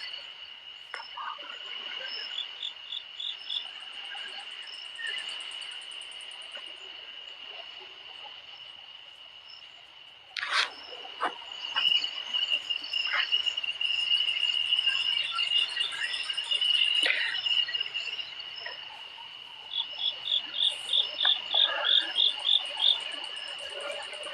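A chorus of calling insects: a steady high shrill with repeated fast trills above it, and near the end a louder chirping call repeating about three to four times a second. A single sharp knock comes about ten seconds in.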